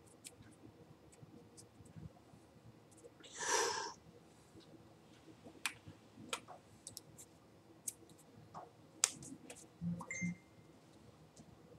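Scattered light clicks and taps from a signer's hands and fingers meeting as he signs, with a brief louder rushing sound about three and a half seconds in.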